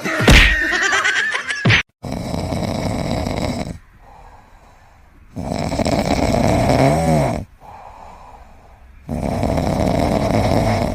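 A pet snoring loudly in three long snores about three and a half seconds apart, with quieter breaths between them. Before that, in the first two seconds, there is a short high-pitched cry.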